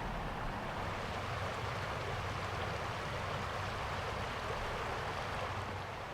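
Steady rushing outdoor background noise with a faint low hum under it, without any distinct events.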